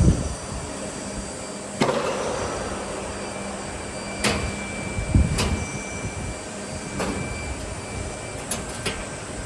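Automatic corrugated box folder-gluer-stitcher running with a steady mechanical din and a low hum, broken by sharp clacks every second or two, with a quick run of three near the end.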